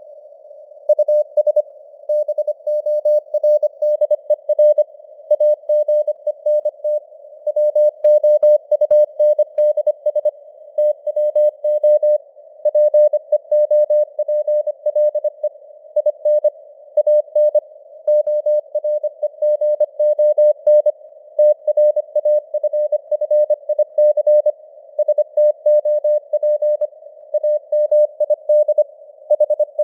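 Morse code (CW) sent at 25 words per minute: a single mid-pitched tone keyed on and off in quick dots and dashes, over a narrow band of simulated radio receiver hiss.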